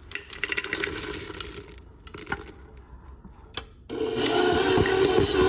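White chocolate chunks and macadamia nuts tipped into a metal stand-mixer bowl of cookie dough, pattering and clicking for a few seconds. About four seconds in, the stand mixer switches on and runs steadily with a hum, beginning to mix them into the dough.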